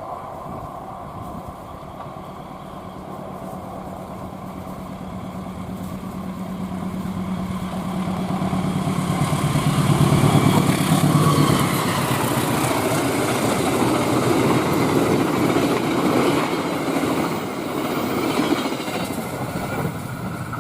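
A passenger train approaching at high speed and passing close by: the diesel locomotive's engine hum grows to its loudest about ten seconds in, then the carriages rush past on the rails for several seconds before the sound eases off.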